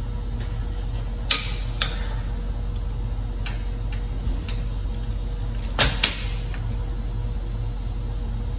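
Click-type torque wrench clicking as it reaches its set torque on the forklift's mast mounting bolts: two pairs of sharp clicks, the first about a second in, the second near the middle, over a steady low hum.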